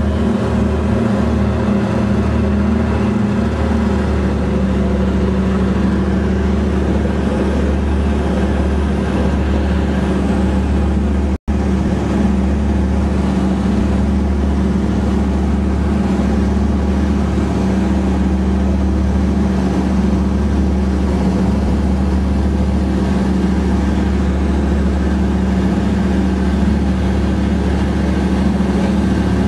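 Douglas DC-3's twin Pratt & Whitney R-1830 Twin Wasp radial engines droning steadily, heard from inside the cabin during the climb after take-off. The sound is a deep, even hum and cuts out for an instant partway through.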